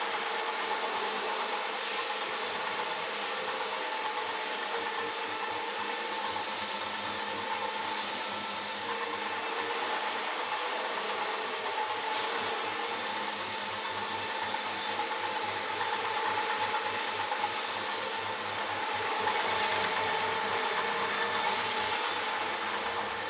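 Rotary floor polisher running steadily as its brush scrubs a carpet: a constant motor noise with a steady tone.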